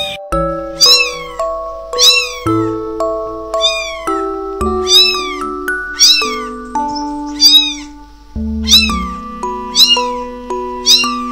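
Very young kittens mewing repeatedly, high thin mews that rise and fall in pitch, about one a second, over background music of held notes.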